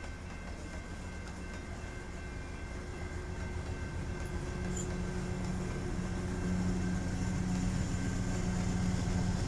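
Canadian Pacific freight train rolling past at a level crossing, with rumble from the wheels and cars. Its mid-train diesel locomotive draws closer, so the engine's steady hum grows louder through the second half.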